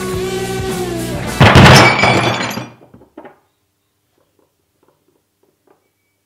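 Rock guitar music ending on a sudden loud crash that rings out and dies away over about a second. Two small clicks follow, then near silence.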